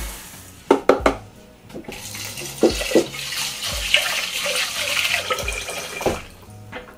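Kitchen tap running water into a rice cooker's inner pot for the rice, with several clunks of the pot being handled.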